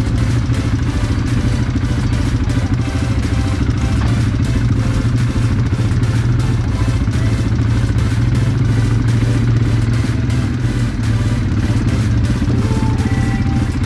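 ATV (quad bike) engine running at a steady pace while riding, a constant low drone with no revving.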